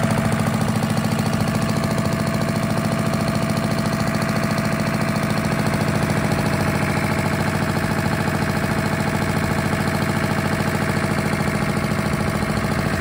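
Lister diesel engine driving a generator head, running steadily at an even speed with a fast, regular firing pulse.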